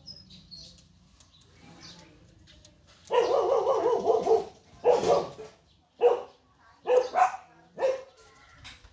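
A dog barking: a run of barks starting about three seconds in, then single barks roughly once a second to near the end.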